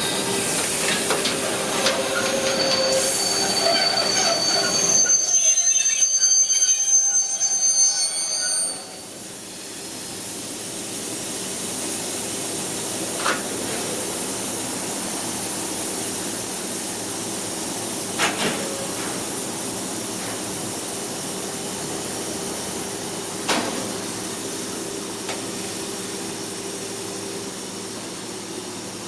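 Freight train hauled by an SBB Cargo Re 482 electric locomotive braking hard into a station, its wheels and brakes squealing in several high tones until it stops about nine seconds in. After that the standing train gives a steady hum, with three sharp knocks a few seconds apart.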